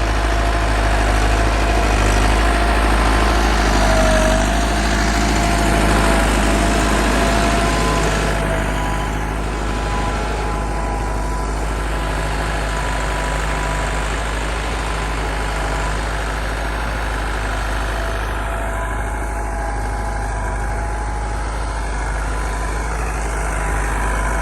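Massey Ferguson 385 tractor's diesel engine running steadily, dropping a little in level after about eight seconds.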